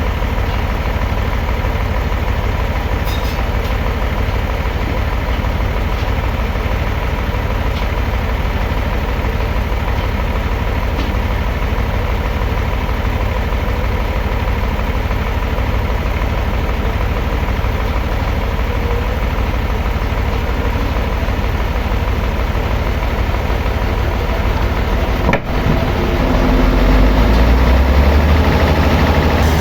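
Sawmill engine running steadily with a low hum. About 25 seconds in it dips briefly, then runs louder and deeper.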